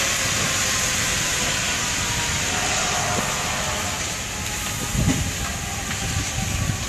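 Burning garages giving off a loud, steady hissing rush that starts abruptly. Low rumbles come through about five seconds in.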